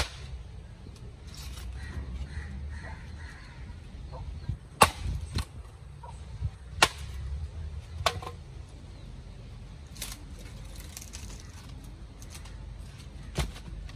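About half a dozen sharp knocks, irregularly spaced one to four seconds apart, over a steady low rumble.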